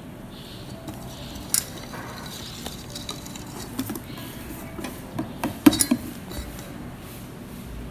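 A utensil stirring pancake batter in a mixing bowl, with scattered clinks against the bowl; the loudest clinks come in a quick cluster about two-thirds of the way through.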